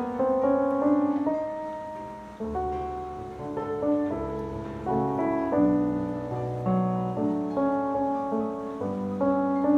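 Roland RD-300NX digital stage piano playing its acoustic piano sound through a speaker: a slow passage of chords over low bass notes, each struck and left to ring.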